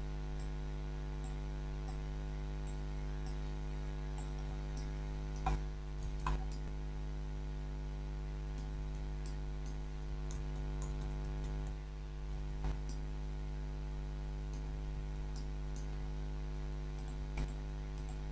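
Steady electrical mains hum, with a handful of short computer mouse clicks scattered through.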